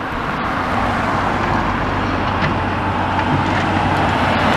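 Road traffic passing close by: the steady rush of car tyres and engines on the road, growing slightly louder towards the end as another car approaches.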